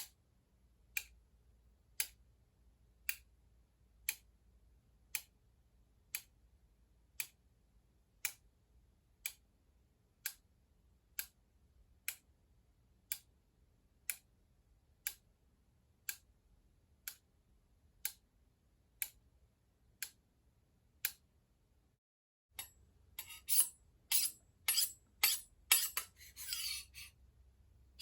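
Steady clock-like ticking, one sharp tick a second. Near the end, after a brief cut, it gives way to a quick, irregular run of louder clicks and clinks.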